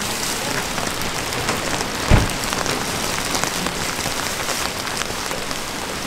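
Heavy rain falling steadily, a dense hiss of many fine drop ticks. A single dull thump about two seconds in.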